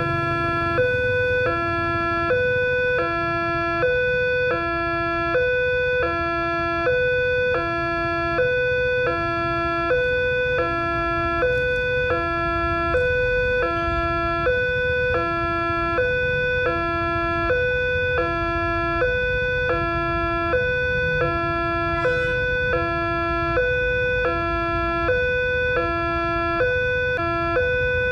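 Railway level-crossing warning alarm sounding from its loudspeaker: an electronic two-tone signal, high then low, repeating about every second and a half while the barriers are down for an approaching train. A low rumble of road traffic waiting at the crossing runs underneath.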